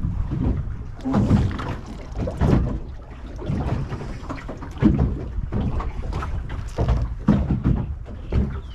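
Wind buffeting the microphone, with water slapping and knocking unevenly against the hull of a small open boat.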